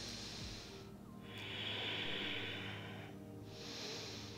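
A woman's slow, deep breaths held in a yoga pose: a long breath in the middle and shorter ones at either end, each a soft rush of air, over quiet background music.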